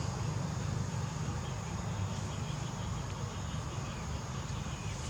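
Outdoor ambience: insects keep up a steady high drone over a low, steady rumble, with a few faint chirps in the middle.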